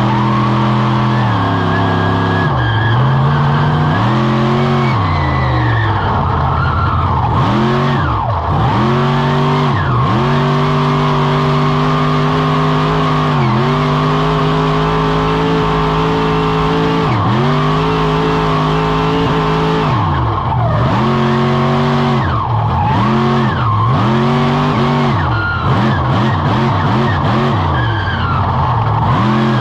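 Avenger monster truck's engine, heard from on board, revving hard through a freestyle run: the throttle is opened and snapped shut again and again. Several times it is held at high revs for a few seconds, then drops sharply as the driver lifts off.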